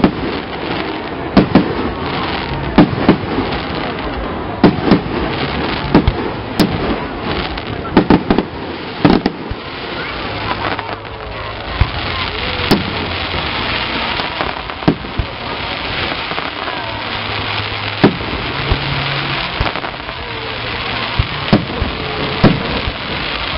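Aerial fireworks shells bursting in loud, irregularly spaced bangs, several close together, with a dense crackling hiss of glittering stars for a stretch about halfway through.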